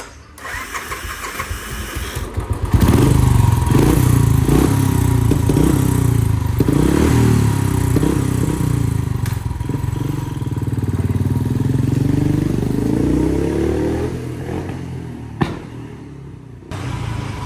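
Motorcycle engine revved hard again and again from about three seconds in, with sharp exhaust pops between the revs. Near the end it climbs in one long rising rev, gives a last pop, and drops back.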